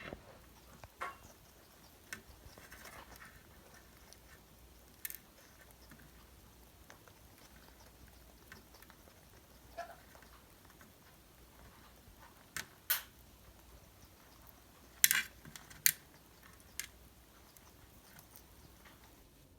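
Parrots eating: scattered sharp clicks and crunches of beaks working at food, a few louder ones in the second half.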